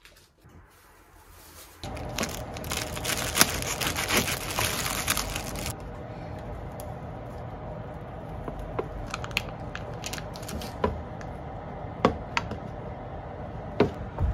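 Crinkling, tearing rustle for about four seconds, then a steady hiss with a few sharp knife taps on a plastic cutting board as a block of tofu is sliced.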